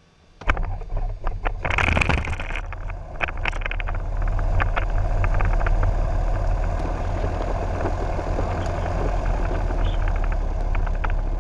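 Grumman Tiger's four-cylinder Lycoming O-360 aircraft engine being started: it cranks with a rapid ticking, catches with a brief louder burst about two seconds in, then settles into a steady idle.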